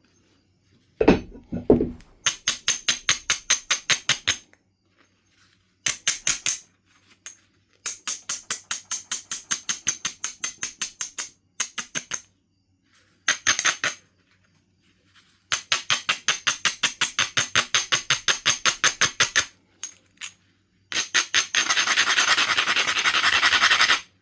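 An abrading stone rubbed rapidly back and forth on the edge of a Knife River flint piece, rasping in several runs of quick strokes, several a second. This grinds the edge to prepare platforms for flaking. A short knock comes about a second in.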